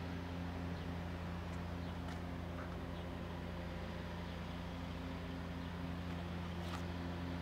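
1966 Chevrolet Corvette's 327 small-block V8 idling steadily through its factory side-exit exhaust pipes, giving a low, even exhaust tone.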